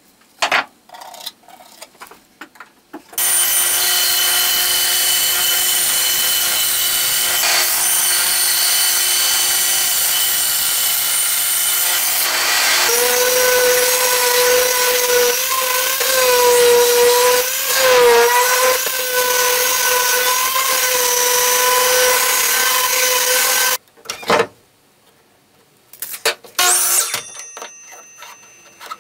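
Power tools running on plywood for about twenty seconds, framed by knocks and clicks of handling. About halfway through, a DeWalt random orbital sander takes over, running with a steady hum that wavers as it is pressed into the wood.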